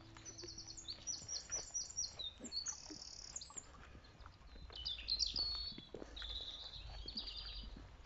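Small songbirds singing: bursts of high, rapid repeated notes and trills, over faint footsteps and a low rumble that comes in about halfway.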